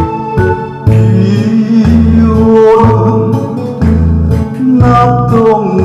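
Instrumental passage of a Korean trot song, played to a backing track: a bass line in held notes, a regular drum beat and a pitched lead melody over them.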